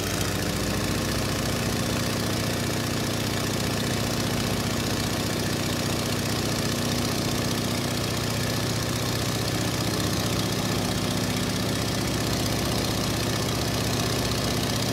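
Turboprop airliner's engines and propellers heard from inside the cabin: a steady loud drone with a constant low hum and no change in pitch.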